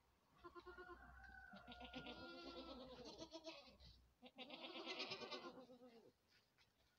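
Goat bleating: two long, quavering calls, the second starting a little past four seconds in.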